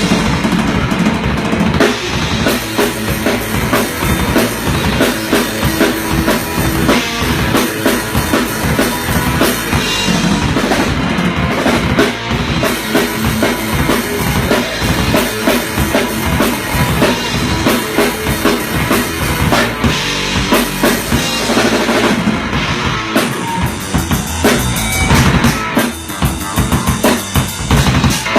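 Rock music driven by a full drum kit, with bass drum and snare prominent.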